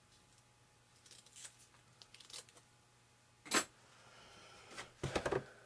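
Fiberglass filament tape being pulled off the roll and cut to length with scissors: scattered light rustles, a sharp rasp about three and a half seconds in, and a burst of crackly handling near the end.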